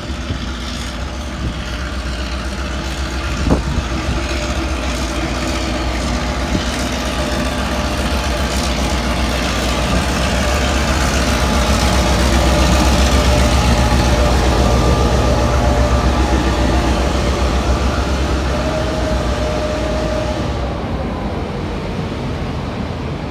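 Victorian Railways T-class diesel locomotive passing slowly along a platform with heritage carriages. The low engine drone grows louder as the locomotive draws level, then eases as the carriages roll by.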